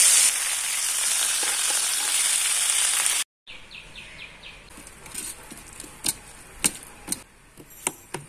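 Pangas fish pieces sizzling in hot oil in a karahi, cutting off suddenly about three seconds in. Then, much quieter, a steel spoon scraping and clicking against a steel plate as spice paste is mixed into raw fish: a quick run of strokes, then a few sharp clicks.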